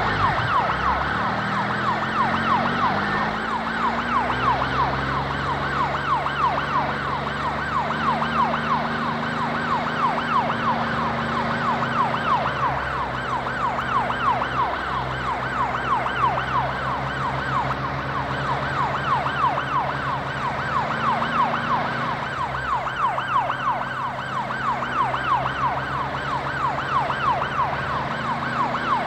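Fast warbling siren wailing steadily, with low sustained tones underneath that step to a new pitch every few seconds.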